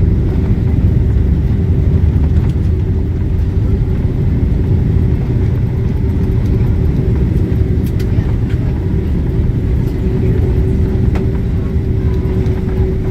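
Boeing 767 cabin noise: a steady low rumble of engines and airframe with a constant hum, as the airliner rolls on the ground after landing. A couple of faint clicks come partway through.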